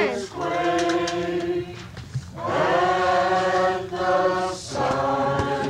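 A group of voices singing a slow Christmas carol together in long held notes, with short pauses for breath between phrases.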